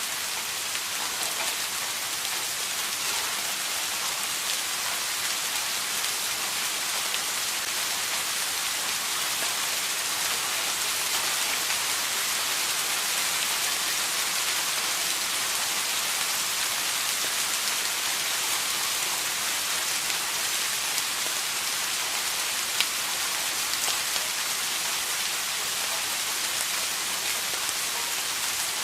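Steady rain falling, a dense, even hiss of drops with faint scattered patters.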